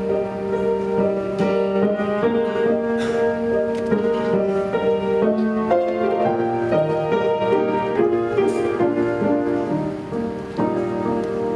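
Piano playing a slow hymn tune in held chords, changing every second or two, without voices.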